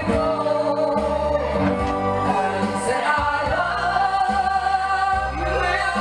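A man singing live into a microphone, holding long notes over instrumental accompaniment with a low bass line.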